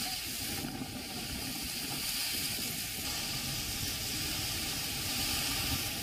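Heavy monsoon rain and strong gusting wind: a steady rushing hiss, with low wind rumble buffeting the microphone.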